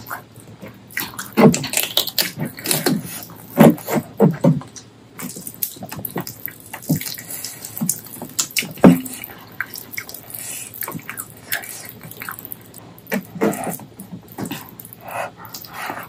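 Close-miked eating sounds: chewing and wet lip smacking on spicy braised pork leg curry and rice, heard as irregular clusters of smacks and clicks.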